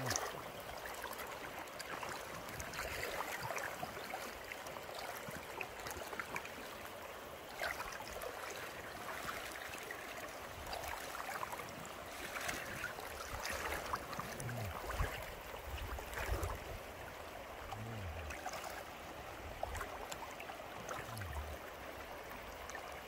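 Wading through shallow river water: irregular sloshing and splashing from the steps over a steady sound of running stream water.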